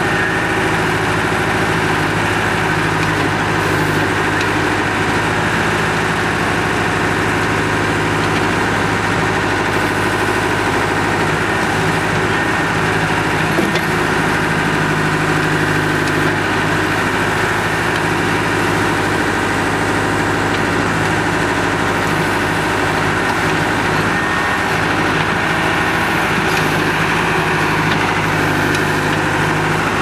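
Escorts Powertrac 4455 tractor's diesel engine running steadily at a constant speed, with no revving.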